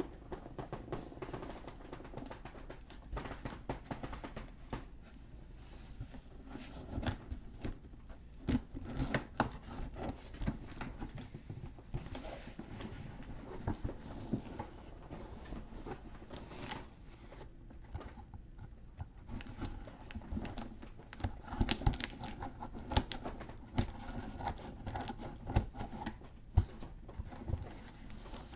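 Irregular scratching, scraping and rustling of a taped-shut shipping package being worked open by hand, with scattered sharp clicks.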